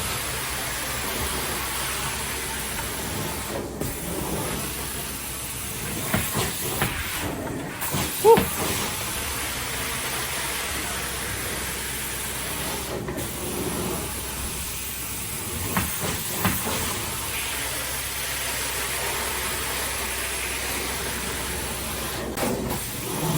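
Carpet-cleaning high-pressure steam rinse running steadily as a hissing rush of spray and suction, with a few short knocks and a brief squeak about eight seconds in.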